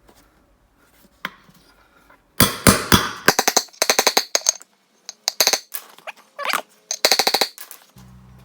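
Welder building up the worn spindle: several short bursts of rapid, sharp crackling, each lasting a fraction of a second to about a second, with brief pauses between them. A low hum starts near the end.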